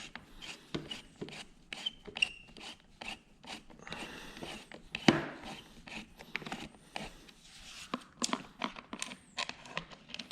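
Irregular clicks, scrapes and rubbing of metal parts being handled as a handguard's bar-end expanding clamp is worked loose and pulled out of the handlebar end. The clamp bolt has been spinning in its sleeve instead of grabbing.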